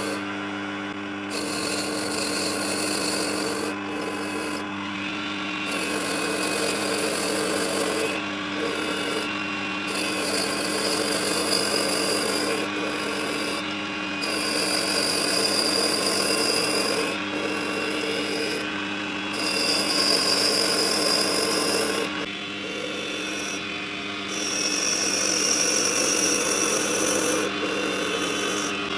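Proxxon PD 250/E mini metal lathe running with a steady motor hum while a carbide-tipped bent turning tool cuts a brass rod into a cone. The cut is a high hissing scrape in repeated passes a few seconds long with short breaks between them, and its pitch sits higher on the later passes.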